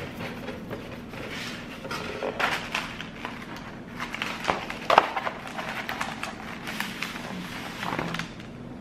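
A pink cardboard donut box being handled: irregular scraping, rustling and tapping as the lid is moved and pressed down by hand, with a sharper knock about five seconds in.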